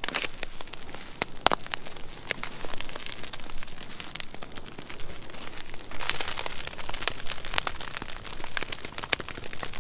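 Dry weeds and straw burning, with dense crackling and popping; it grows fuller and louder about six seconds in.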